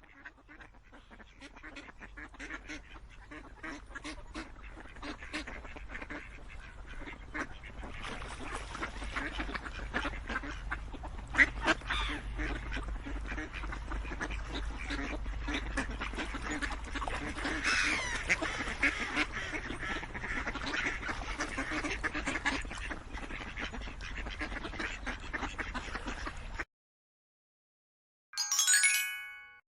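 Ducks quacking, a dense, continuous run of calls over a low steady rumble, fading in at first and cutting off abruptly near the end. A short bright chime follows.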